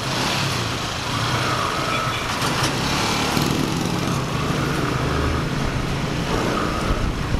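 Small motorcycle engine running steadily at low speed, with street noise.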